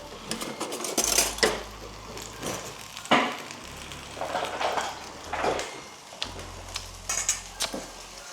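Utensils clinking and scraping on kitchenware, half a dozen separate knocks with the loudest about three seconds in, over a faint sizzle of the stir-fry in the pan.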